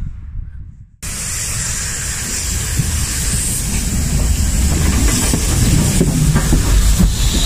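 Steam locomotive close by, a steady hiss of escaping steam over a low rumble, starting abruptly about a second in.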